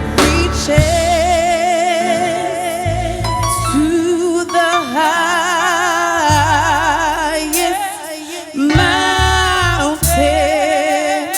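Gospel song: a singer holds long notes with a wide vibrato over a band with a pulsing bass line.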